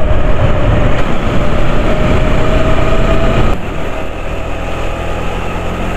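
Motorcycle riding at road speed, heard from a camera on the bike: steady engine drone mixed with heavy wind and road noise. About three and a half seconds in, the sound drops and turns quieter and lower.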